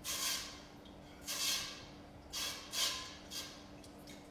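Wooden spoon stirring a saucepan of pickling brine on the stove, scraping and swishing in about five short strokes, over a faint steady hum.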